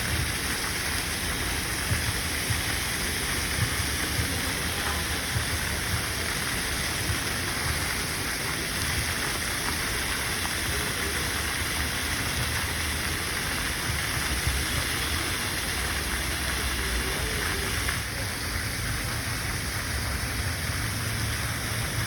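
Public city fountain's water splashing steadily, a constant rush of falling spray with no break.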